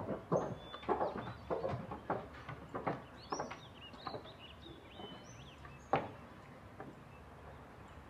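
Footsteps of several people walking across a wooden deck, a few a second at first, thinning out after about three seconds, with one sharper step about six seconds in. Small birds chirp at intervals over them.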